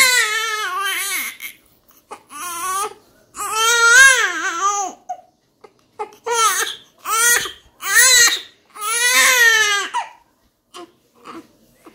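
Newborn baby crying in a run of high-pitched wails, each up to about a second and a half long with short breaths between, dying away near the end.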